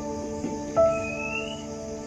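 Background music: slow, calm ambient music of held notes, with a new note coming in about three-quarters of a second in.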